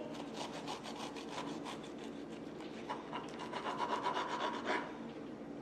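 Kitchen knife sawing back and forth through a grilled, crisp flour-tortilla wrap on a wooden cutting board: a quick, even run of scraping strokes, a little louder just before the end.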